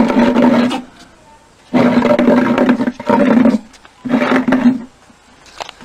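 An animal growling in a series of long, loud, drawn-out growls, each held on one steady low pitch, with short pauses between them.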